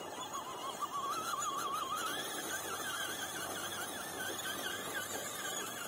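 Electric motor of an RC rock crawler whining, its pitch wavering rapidly up and down and stepping a little higher about two seconds in, as the throttle is worked to creep the truck up a loose dirt slope.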